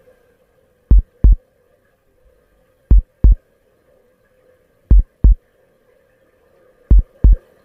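Slow heartbeat: four lub-dub double thumps, one pair every two seconds, over a faint steady hum.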